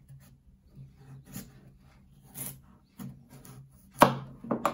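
Kitchen knife sawing back and forth through the end of a butternut squash in a run of short rasping strokes. About four seconds in, the cut finishes with a sharp knock of the blade on the chopping board, followed by a couple of lighter knocks.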